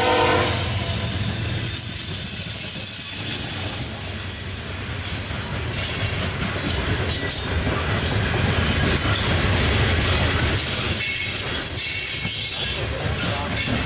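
A loaded CSX coal train rolling by. The horn cuts off about half a second in. Then the coal hopper cars' steel wheels rumble and clatter on the rails, with high-pitched wheel squeal coming and going.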